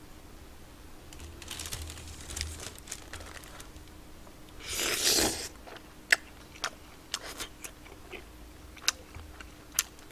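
Plastic wrapper of a kids' stick sausage crinkling, then torn open with one loud rip about halfway through, followed by scattered sharp clicks.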